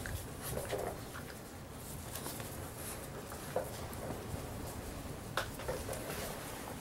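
Six-week-old Labrador retriever puppies playing over toys on a concrete floor: light pattering and scuffling of paws and plush toys, with a few sharp clicks, the clearest about three and a half and five and a half seconds in.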